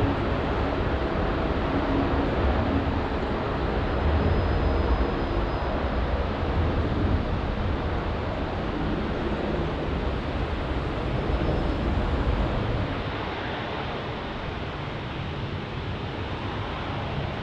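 Jet airliner at takeoff thrust, a steady deep roar as the Boeing 787 speeds along a wet runway and lifts off, dropping in level about thirteen seconds in.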